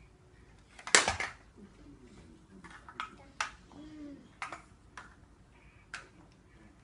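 Large hard-plastic toy building blocks clacking as a toddler pulls them apart and presses them together, with a loud clatter about a second in and scattered sharp clicks after.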